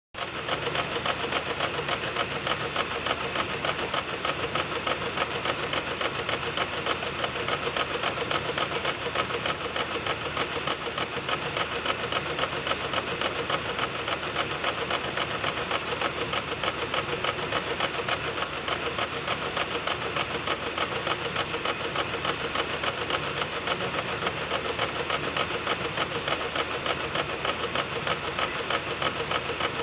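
DVD drive clicking in a steady, even rhythm, about three to four clicks a second, over the steady whir of the spinning disc. The clicking comes from the drive reading program files off a burned boot DVD.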